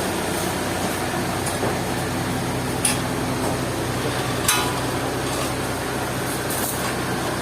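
Sawmill machinery running steadily, a low engine-like hum under a broad hiss, with two sharp knocks about three and four and a half seconds in.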